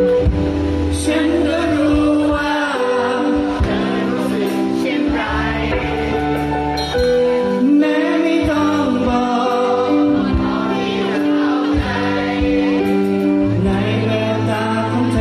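Live band playing a slow song on electric guitar, keyboard and drum kit. A wavering, bending melody line runs over sustained chords and steady drum hits.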